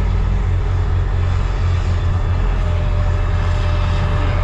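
Semi truck's diesel engine droning steadily, heard from inside the cab. A faint thin whine joins about two and a half seconds in.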